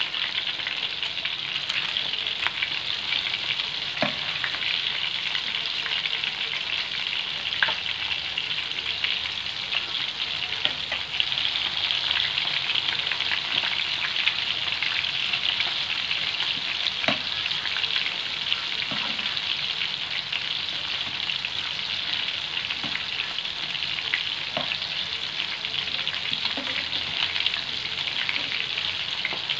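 Marinated prawns deep-frying in a wok of hot oil: a steady crackling sizzle, with a few sharp clinks of a steel slotted spatula against the pan.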